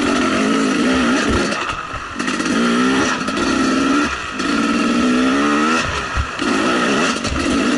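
KTM 300 XC two-stroke single-cylinder dirt bike engine under way, revving up and down with the throttle. The throttle is closed briefly three times, each time followed by a rising rev.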